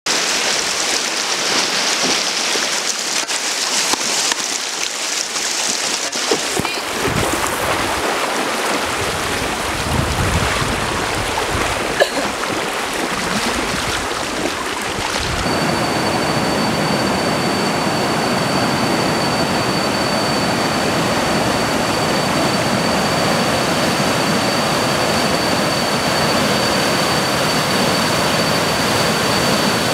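Water splashing and sloshing around a bamboo raft being towed through a shallow river. About halfway through it gives way to the steady rush of water tumbling through rocky rapids, with a thin high steady whine over it.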